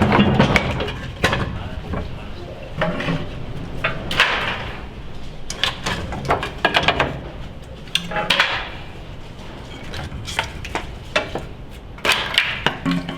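Irregular sharp metal clanks and knocks, as of hand work with tools and metal parts, with voices talking in the background.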